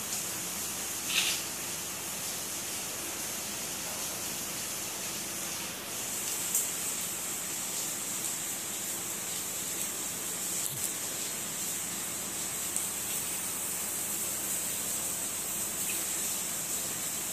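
Steady high-pitched hiss, a little louder from about six seconds in, with a few faint clicks.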